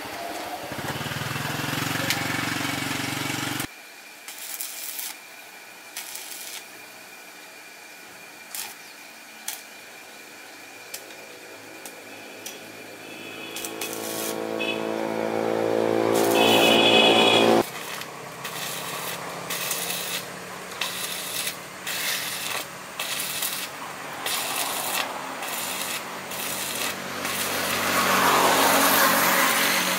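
Workshop tool sounds in several short cuts: scattered clicks and scraping, and in the middle a motor-driven tool droning and growing louder for a few seconds before it cuts off suddenly.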